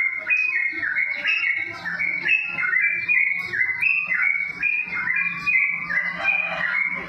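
Java sparrow (gelatik) singing: a continuous run of short, clear whistled notes stepping up and down in pitch, several a second. A faint low hum sits underneath from about two seconds in.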